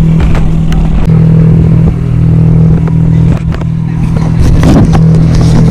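Tour boat's engine running with a steady low drone, with a few short knocks and clatters over it.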